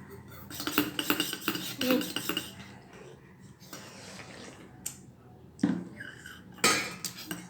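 Cutlery clinking and scraping on a plate as food is scooped up: a quick cluster of clinks in the first couple of seconds, then a few single knocks near the end.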